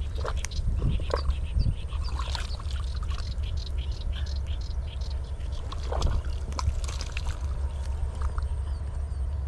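Wet squelching and splashing of hands and arms working in mud and water at an eel burrow, a scatter of short irregular crackles over a steady low rumble.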